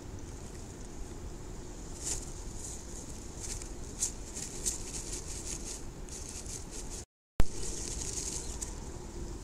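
A bluebird shifting and settling in its nest box, its body and wings scraping the dry grass nest in a series of short, scratchy rustles over steady low background noise. The sound drops out briefly about seven seconds in and comes back with a sharp click.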